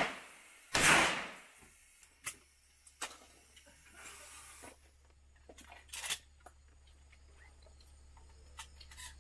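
A shotgun shot about a second in, dying away over about a second, with more sharp clicks and knocks after it, typical of the shotgun being handled and reloaded.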